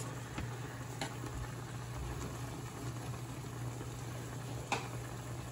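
Buttery Marsala sauce with mushrooms bubbling at a steady rolling boil in a stainless steel sauté pan. A couple of faint clicks, about a second in and near the end.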